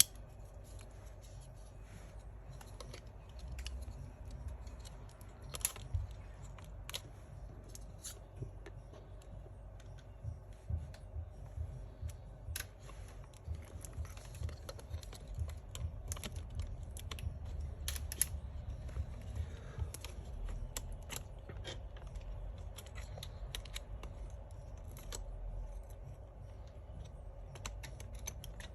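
Irregular small clicks and taps of hands handling laptop internals: a metal plate and a replacement cooling fan being fitted and seated, over a low handling rumble.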